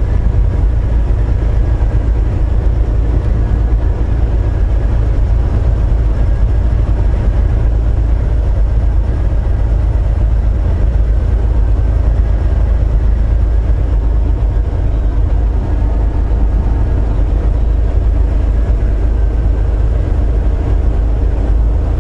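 Heard from inside the cab of a Volvo VNL860 semi-truck: diesel engine and road noise while cruising on the highway, a steady low rumble.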